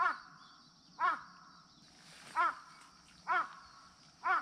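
A crow cawing five times, each short harsh caw about a second apart, in a back-and-forth with another crow that answers from farther off.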